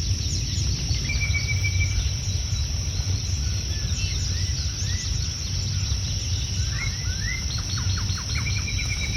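Wild birds calling, with short chirps, a brief high trill about a second in, a quick run of notes near the end and another trill at the very end. Under them runs a steady high insect drone and a low outdoor rumble.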